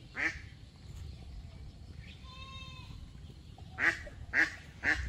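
Ducks quacking: one quack at the start, then three in quick succession near the end, with a short, clear bird call in between.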